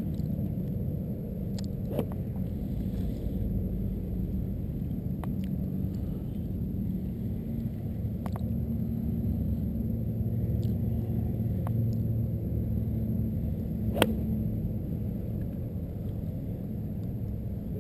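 Steady low rumble, with a single sharp crack about fourteen seconds in: the golf club striking the ball on a tee shot. A few fainter ticks come earlier.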